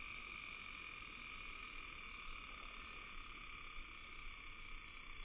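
Steady, unbroken evening chorus of calling frogs, played back in slow motion.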